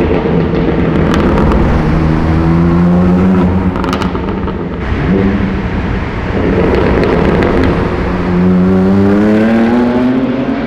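BMW M2 Competition's S55 twin-turbo straight-six running under acceleration, its pitch climbing, dropping about halfway through at a gear change, then climbing again through a second pull.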